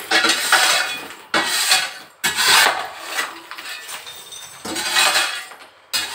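Hammer striking broken brick and concrete rubble, about four blows roughly a second apart, each a sharp crash followed by clattering debris.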